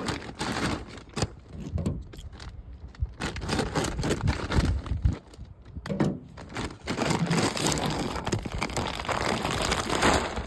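Irregular crinkling, scraping and knocking of feed bags and a deer feeder being handled, with stretches of rattling noise.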